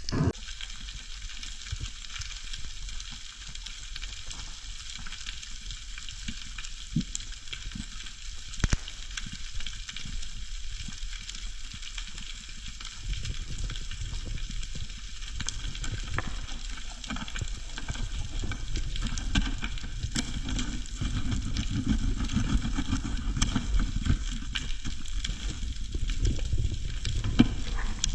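Underwater ambience: a steady hiss of fine crackling, with a low rumble that grows louder about halfway through.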